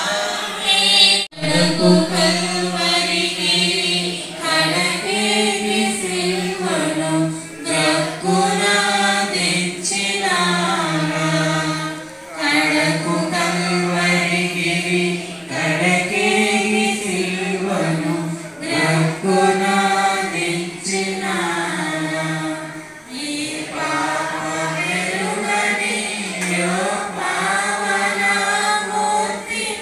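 Congregation singing a hymn together, unaccompanied, in drawn-out phrases of a few seconds each; the sound briefly cuts out about a second in.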